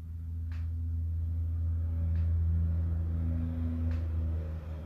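A low, steady humming drone with a few held tones above it, swelling in the middle and fading near the end.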